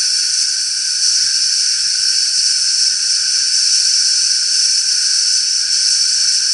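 Compressed air hissing steadily out of the tank of a homemade silent air compressor as the pressure is let down slowly toward 75 PSI, the point where the compressor cuts back in.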